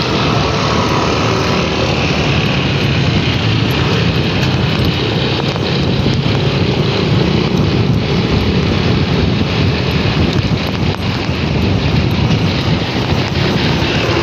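Steady noise of a moving vehicle on the road, with wind rushing over the microphone.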